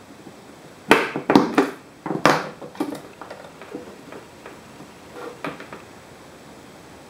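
Punch-down tool snapping as it seats CAT6 cable wires into the insulation-displacement contacts of a keystone jack: about five sharp clicks in quick succession about a second in, followed by softer, scattered clicks of wires being handled and laid into the jack.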